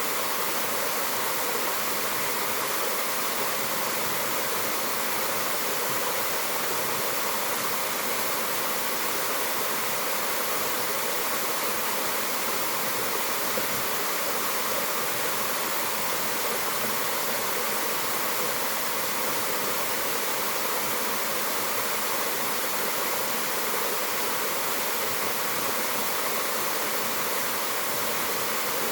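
Waterfall pouring into a stream, a steady, even rush of falling water that does not change.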